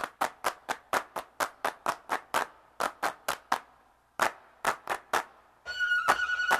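Rhythmic handclaps, about four a second, with two short breaks. Music starts near the end.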